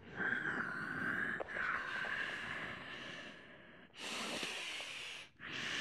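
A man breathing audibly through the nose under effort as he presses up into a wheel-pose backbend: one long breath, then a shorter one about four seconds in, and another starting near the end.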